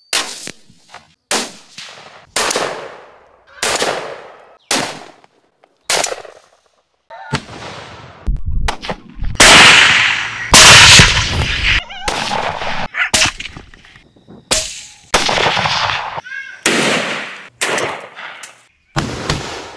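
Hunting rifle shots, one after another: about fifteen sharp cracks, each trailing off in a short echo. A louder, longer stretch of noise comes from about eight to twelve seconds in.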